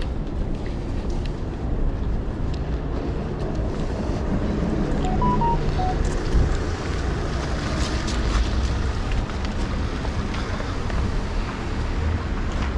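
Wind buffeting the microphone: a steady, gusty low rumble with a few faint clicks. About five seconds in, a quick run of four short beeps.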